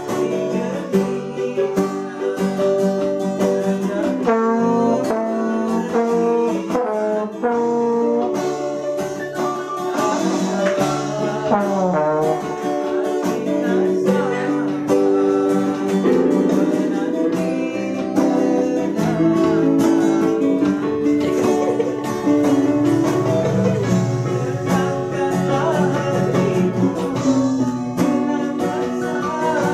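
A small dangdut band rehearsing without a sound system: trombone, strummed acoustic guitar and portable electronic keyboards playing together.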